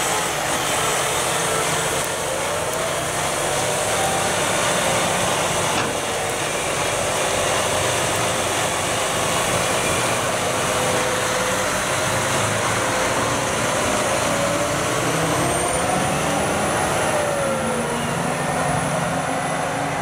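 Claas Xerion 5000 tractor's diesel engine running steadily as it drives along the road, pulling a trailed drum wood chipper, with a faint whine that slowly rises and falls in pitch.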